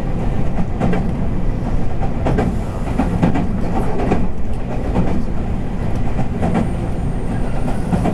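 Running noise heard inside the passenger cabin of a JR West 221 series electric train's motor car: a steady low rumble of wheels on rail, with clacks as the wheels pass over rail joints at irregular intervals.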